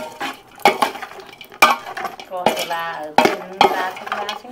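Dishes and cutlery clinking and knocking as a meal is dished up: several sharp clinks spaced about a second apart.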